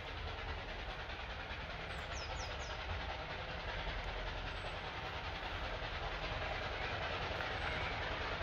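Steady low rumble of an approaching steam road engine, still out of sight, growing slowly louder.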